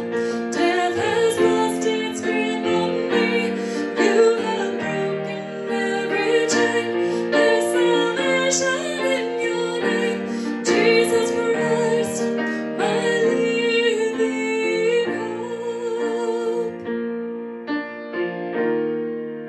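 A woman singing a worship-song chorus to her own piano accompaniment. Near the end her voice stops and the piano carries on alone.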